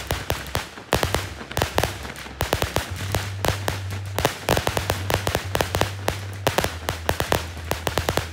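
Fireworks crackling: a dense, irregular run of sharp pops and snaps, with a low steady hum underneath.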